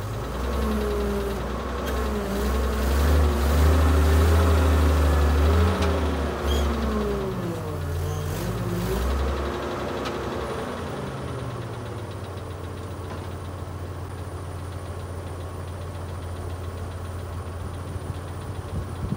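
1982 Hyster H150F forklift engine revving up and down while working the hydraulics to tilt a heavy stone on the forks, a test of freshly rebuilt tilt cylinders. About ten seconds in it settles to a steady idle.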